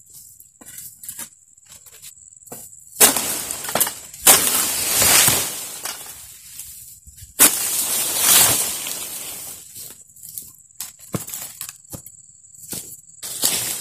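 Oil palm fronds being cut with a long-pole sickle (egrek) and falling. Sharp cracks come about three seconds in, again a second later, and once more around seven seconds, each followed by a long rustling crash as the frond comes down through the leaves.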